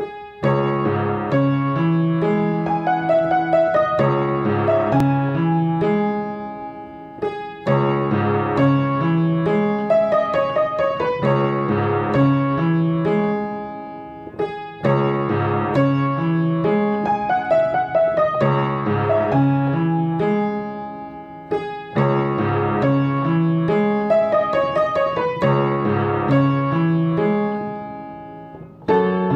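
Solo piano music: a short phrase over a stepping bass line, repeated about every seven seconds, each time dying away before the next begins.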